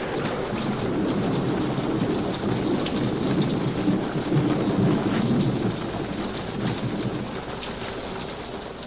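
Steady rain with a low rumble of thunder, swelling towards the middle and easing off near the end.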